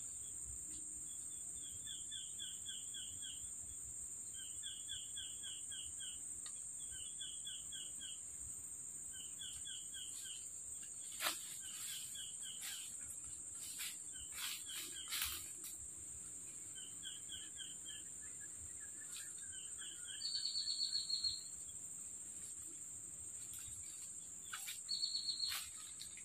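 Tropical forest ambience: insects keep up a steady high-pitched drone while a bird repeats short phrases of quick falling notes every second or two. A few sharp clicks and rustles come in the middle, and two short steady high buzzes come near the end.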